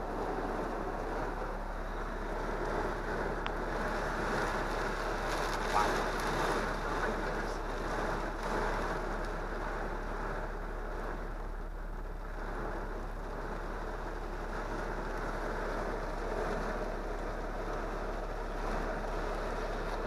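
Heavy storm rain and wind beating on a pickup truck, heard from inside the cab: a steady rushing hiss, swelling a little in the middle, with a few light ticks of drops on the glass.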